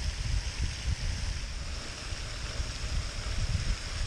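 Wind buffeting the microphone in uneven gusts, over a steady hiss of splashing water from a pond fountain.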